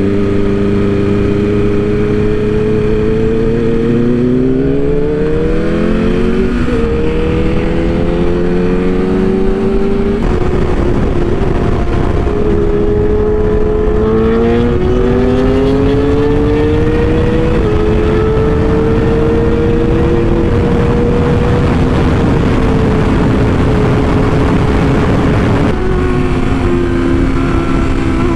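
Inline-four superbike engine heard from the rider's seat, pulling up through the gears: its note climbs and drops back at each of several upshifts. From about ten seconds in, heavy wind rush at freeway speed covers it while it cruises with a few more shifts.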